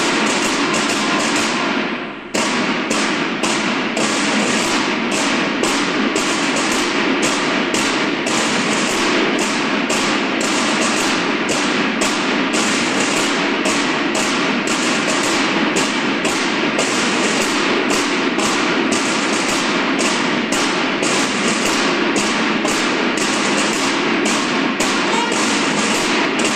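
Marching snare drums of a drum-and-bugle corps playing a steady, even cadence of sharp strokes, with a brief break about two seconds in.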